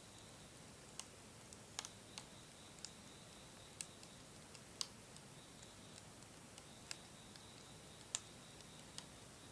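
Wood fire crackling quietly: about a dozen sharp, irregularly spaced pops and snaps over a faint steady hiss.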